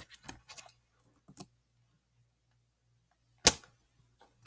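A few faint clicks, then one sharp, loud click about three and a half seconds in and a lighter click at the end, from computer input as text is pasted into a drawing app.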